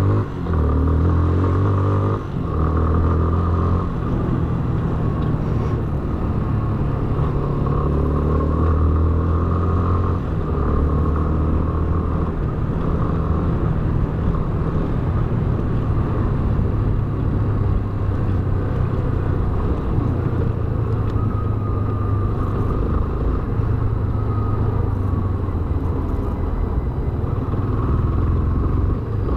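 Yamaha Fazer BlueFlex motorcycle's single-cylinder engine running steadily, with two brief dips in level about half a second and two seconds in.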